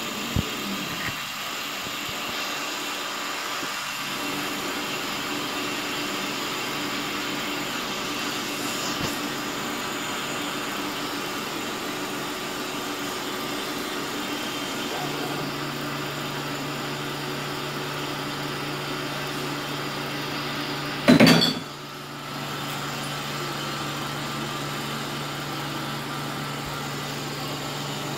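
CNC router spindle running with its end mill cutting a pocket into a wooden board: a steady machine noise with a low hum that grows stronger about halfway through. About three quarters of the way in comes a sudden loud burst lasting about half a second.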